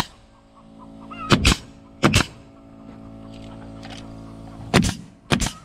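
DeWalt pneumatic coil nailer firing nails through trim boards into a plank wall: sharp shots, a pair about a second and a half in, another just after, and two more near the end.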